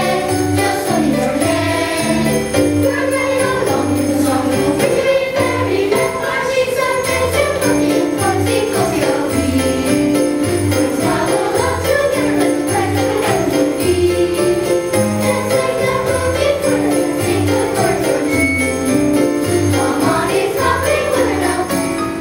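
Children's choir singing over an accompaniment with a stepping bass line and jingle bells shaken in a steady rhythm.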